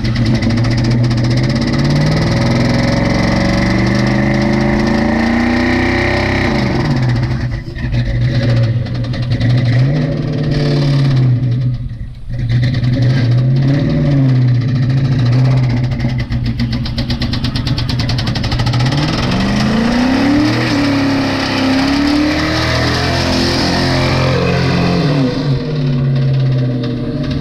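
1999 Mustang GT's 4.6-litre V8 revved hard up and down repeatedly during a burnout, its pitch climbing and falling over and over, with a brief drop about twelve seconds in. The engine has a rod knock and, by the driver's account, is missing badly, dead in a couple of cylinders.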